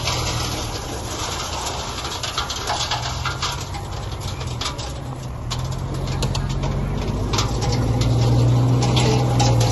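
Heavy construction machine's engine running steadily, louder near the end, with scattered clicks and knocks.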